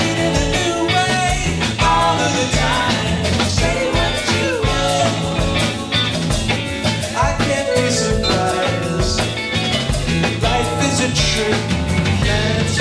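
Live band playing an upbeat rock groove: drum kit and bass keep a steady beat under a wavering melody line.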